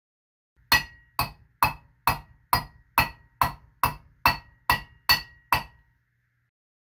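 Eleven even hammer blows on a copper cup held over a steel stake, about two a second, each with a short bright metallic ring.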